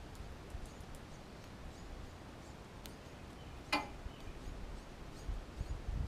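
Backyard ambience: a low rumble of wind on the microphone, a few faint high bird chips, and one sharp tap a little past halfway.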